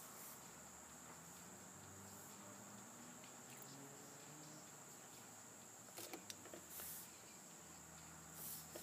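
Near silence with a faint steady high-pitched hiss, and a few soft scratches of a pen on sketchbook paper about six seconds in and again near the end.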